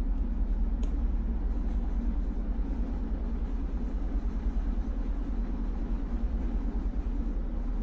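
Steady low background rumble, with one faint click about a second in.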